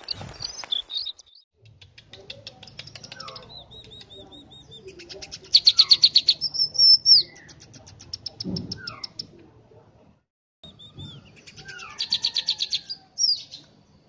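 Scaly-breasted munia singing: long runs of rapid dry clicks mixed with thin high whistles that slide up and down. Two loud, fast click series come about halfway through and again near the end, and there is a soft knock a little after the first.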